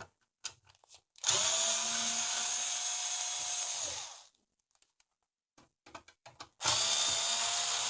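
A power screwdriver running twice, each burst lasting about three seconds, as it backs screws out of the receiver chassis. Its motor whine dips slightly as the first run stops. A few small clicks sound between the two runs.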